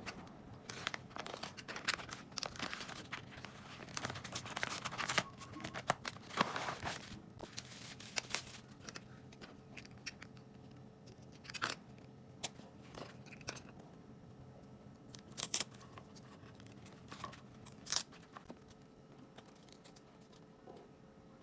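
Packaging being torn open and crinkled by hand for several seconds, then sparser small clicks and handling noises.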